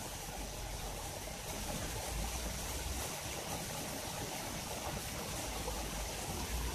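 Steady sound of running water at a koi pond, an even trickling with occasional low rumbles.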